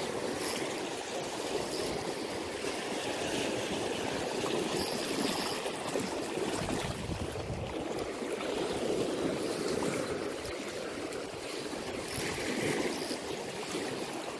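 Turbulent water rushing and churning steadily.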